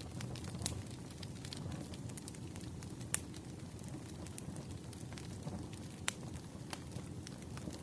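Firewood burning: a steady low rumble of flames with scattered sharp crackles and pops, the loudest pop about three seconds in.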